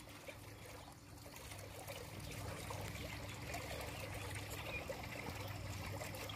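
Faint, steady trickling of swimming-pool water over a low steady hum.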